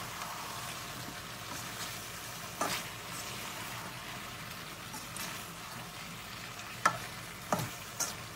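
Green tomato pieces frying in a metal pan with a steady sizzle while a spatula stirs them, scraping against the pan. There are a few sharp knocks of the spatula on the pan, most of them near the end.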